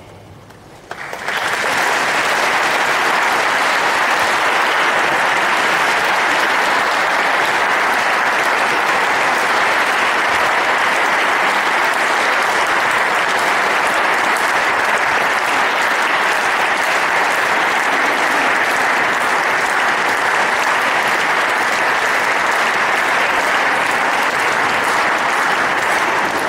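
Audience applauding, a steady sustained clapping that starts abruptly about a second in and fades out near the end.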